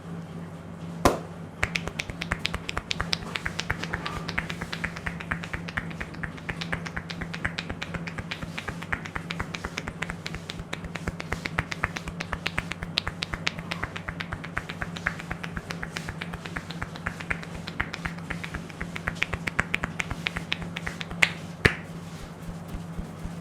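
Rapid, continuous run of sharp snaps and cracks from a barber's hands during an Indian head massage, as the hair is pulled and cracked. One louder crack comes about a second in and two more near the end.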